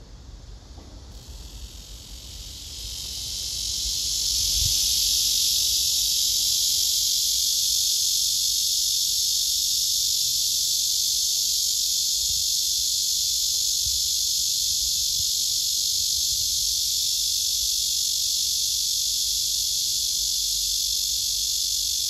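Male cicadas singing: a loud, steady, high buzzing drone that swells in over the first few seconds and then holds without a break.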